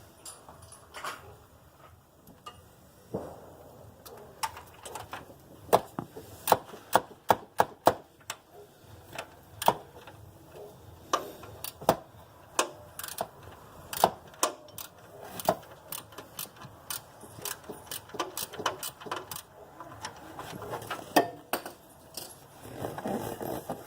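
Irregular sharp metallic clicks and clinks, often several a second, with some rustling in between, from hand tools and metal parts being handled in a car's engine bay while a serpentine belt is fitted over the pulleys.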